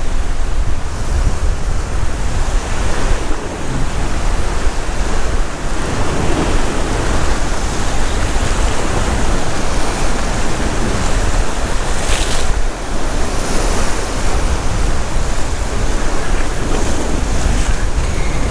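Ocean swell surging and breaking in white water against a rock ledge, with wind buffeting the microphone in a steady low rumble.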